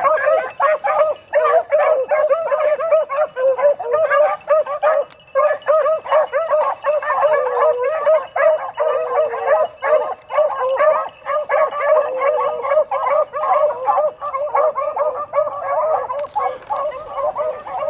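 A pack of beagles baying as they run a rabbit, several hounds giving tongue at once in a continuous, overlapping chorus of yelps and bawls.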